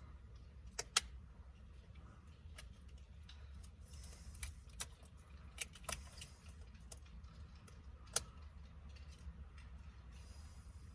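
Scattered sharp plastic clicks and light rattles of steering-wheel wiring connectors being handled and pushed together, about eight in all, over a faint low hum.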